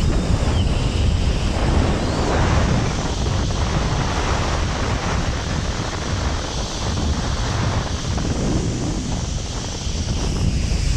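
Storm wind from Cyclone Shaheen buffeting the microphone, with a loud, steady rushing noise and a deep rumble throughout.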